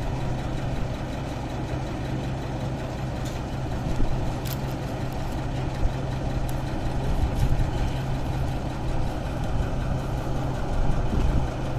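Engine of a truck-mounted borewell drilling rig running steadily, with a few sharp knocks, the loudest about four seconds in.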